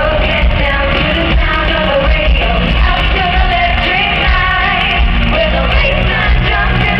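Live pop group playing in an arena, heard from the audience: loud, continuous band music with heavy bass under female lead vocals singing.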